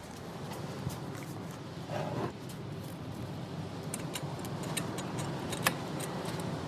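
Chevy Tahoe's 5.3-litre Vortec V8 running steadily, just back together after a water pump replacement, with light ticks and clicks scattered over the engine note.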